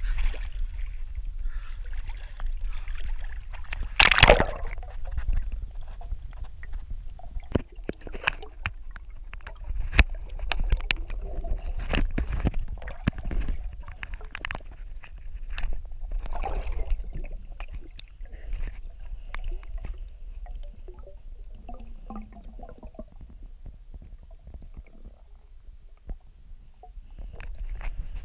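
Water sloshing and gurgling around a camera held underwater, heard muffled through its housing as a steady low rumble with scattered sharp knocks. The loudest knock comes about four seconds in.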